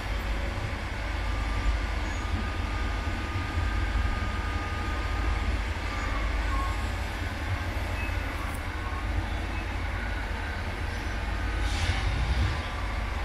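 A railway tamping machine's diesel engine running steadily with a deep rumble as it works slowly at the tunnel mouth. A brief hiss comes near the end.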